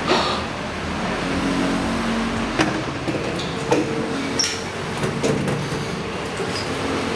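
Kone MonoSpace lift doors sliding open over a steady hum of background noise. Inside the car there follow a few sharp clicks and two short high beeps as the floor buttons are pressed.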